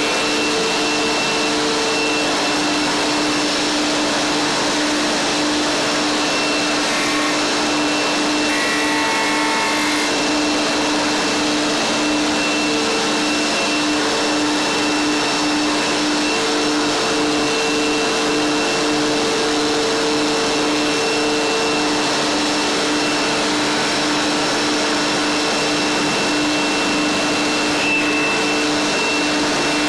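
Sherwood drum sander running steadily with its dust extraction, a constant whir with a steady hum, while an end-grain chopping board is fed through on the conveyor belt.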